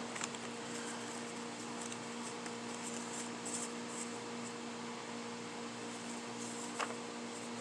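Steady low electrical hum over faint room noise, with a couple of soft clicks, one just after the start and one near the end.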